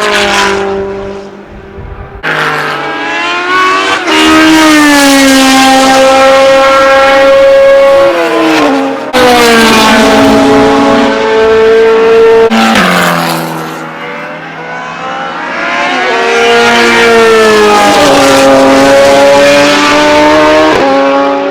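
Unsilenced historic racing car engine running loud at high revs, its pitch climbing and then dropping sharply several times as it changes gear.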